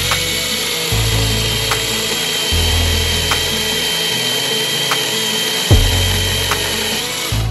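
Imoum 6-inch cordless mini chainsaw's 600-watt brushless motor running at a steady speed with an even whine, cutting off near the end.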